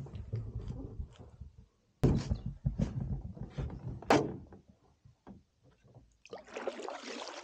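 Hollow knocks and thunks of a canoe hull as a person climbs in, with gear and a paddle bumping against it. The loudest knock comes a little after four seconds in, and a short rushing noise follows near the end.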